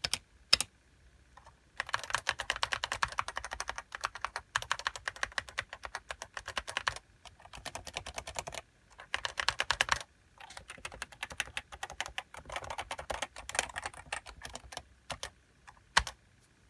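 Fast typing on a Leopold FC660C keyboard with 55 g uniform Topre electro-capacitive switches and HiPro keycaps: runs of rapid keystrokes broken by short pauses, with one louder stroke near the end.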